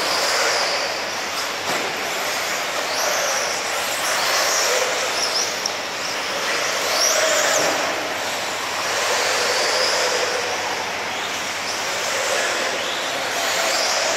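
Tekno EB48 1/8-scale electric RC buggies running on a dirt track: high-pitched motor and drivetrain whines that rise and fall with the throttle over a steady noisy rush.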